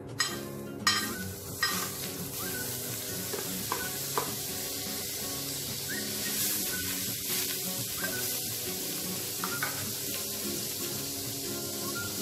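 Butter sizzling as it melts and foams on a hot cast-iron sizzling plate, a steady hiss. A few sharp clicks come in the first two seconds.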